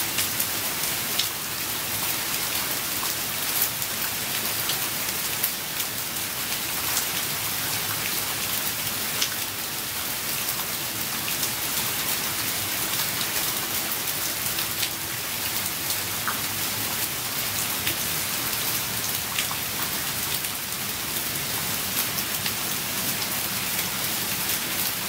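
Steady rain: an even hiss with many scattered sharp drop ticks.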